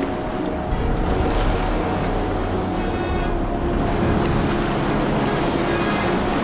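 River whitewater at high water rushing and splashing around an inflatable raft, with wind buffeting the microphone.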